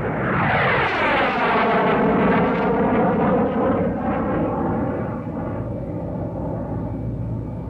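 Cinematic logo-intro sound effect: a downward-sweeping whoosh that settles into a steady, rumbling drone, easing off a little in the second half.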